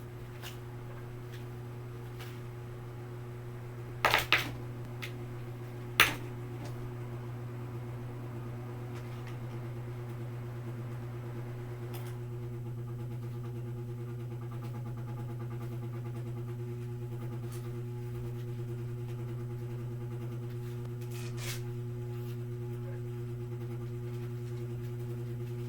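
Ceiling fan starting up: a few sharp clicks about four and six seconds in, then a steady low hum with the motor's running tones slowly getting louder as it spins up.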